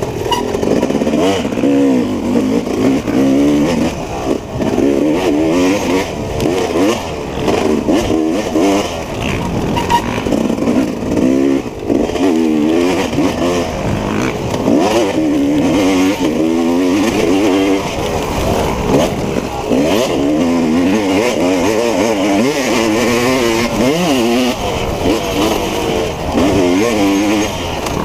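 Dirt bike engine revving up and down continuously as it is ridden hard off-road, its pitch rising and falling every second or two.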